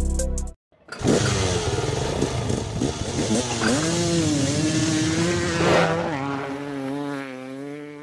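Motorcycle engine running and revving, its pitch swinging up and down, then settling to a steadier note that steps lower about six seconds in and fades near the end.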